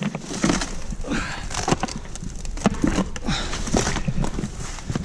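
Someone scrambling down a slope through brush: irregular crackling and snapping of twigs and dry vegetation with scuffing footsteps, over a low rumble.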